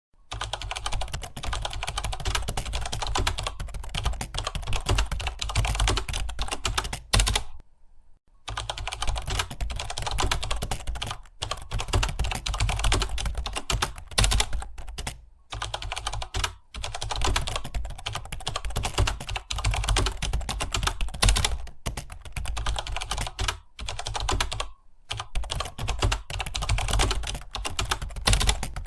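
Fast, continuous typing on a computer keyboard, a dense run of keystroke clicks broken by a few short pauses, the longest about eight seconds in.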